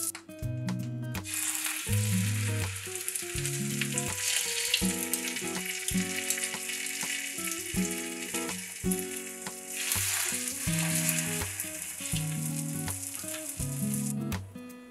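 Butter sizzling and spitting in a hot frying pan as egg-soaked bread slices fry in it, growing louder about ten seconds in and dropping away near the end. Soft background music plays underneath.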